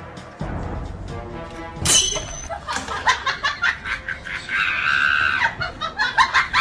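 Background music, then, about two seconds in, a sudden loud effect followed by a quick run of short laugh-like sounds.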